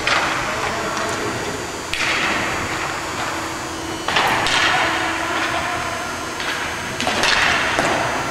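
Sharp knocks of hockey sticks and the puck during play, with harder bangs off the rink boards about two, four and seven seconds in, each ringing out in the echoing arena.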